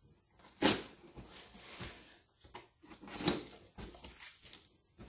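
Old corrugated cardboard box being torn open by hand: a few short tearing and rustling sounds, the loudest just over half a second in.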